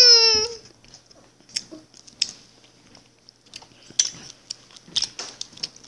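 Quiet mouth sounds of a child sucking and chewing Warheads sour hard candy: small wet clicks and light crunches. It opens with the tail of a loud held high-pitched tone that dips slightly in pitch and cuts off about half a second in.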